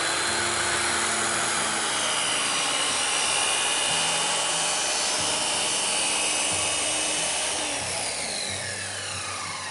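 Corded circular saw with a Diablo blade cutting through a white plastic sheet, running steadily under load. Near the end the pitch falls and the sound gets quieter as the saw slows.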